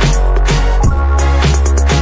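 Background electronic music with a deep sustained bass and a steady drum beat of about two hits a second.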